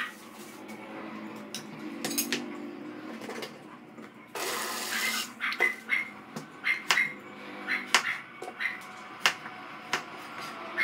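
Kitchen knife cutting a carrot on a plastic cutting board: irregular sharp knocks, one to three a second, through the second half. Before them, about four seconds in, there is a short rushing noise.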